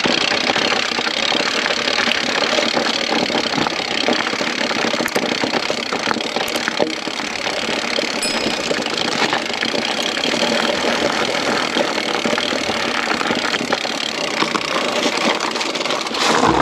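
Steady rolling and rattling noise of a mountain e-bike riding over a rough trail: tyre noise and frame rattle, with wind on the microphone.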